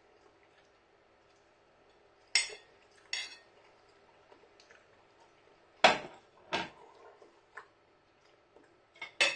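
Cutlery knocking and clinking against a dish: about six separate sharp clinks spaced a second or so apart, the loudest a little before the middle.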